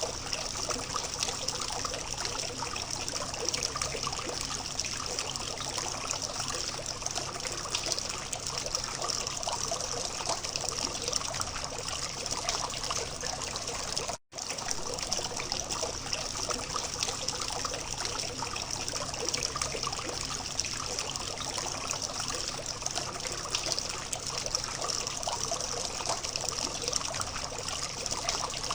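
Small water fountain trickling and splashing steadily, with a momentary dropout about halfway through.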